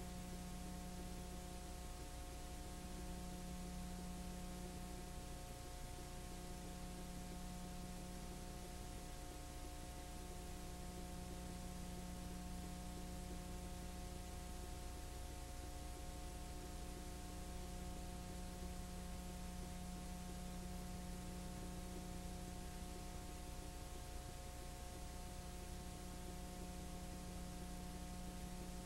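Steady electrical hum with a constant hiss underneath, unchanging throughout. No sound events; the footage is silent.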